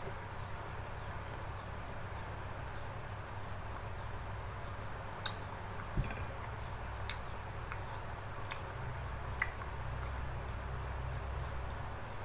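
Mouth and eating noises during a meal: a handful of short, sharp clicks spaced a second or so apart, over a steady low hum.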